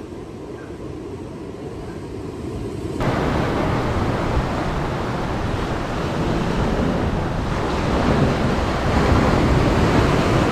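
Low rumble of wind on the microphone, then about three seconds in an abrupt change to louder surf washing and breaking over rocky shoreline, with wind buffeting the microphone.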